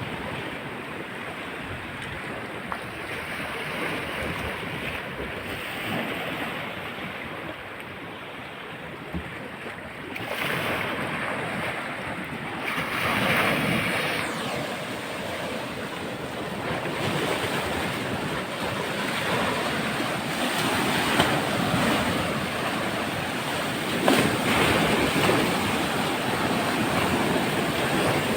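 Sea waves washing onto the shore, swelling and falling every few seconds, with wind buffeting the microphone.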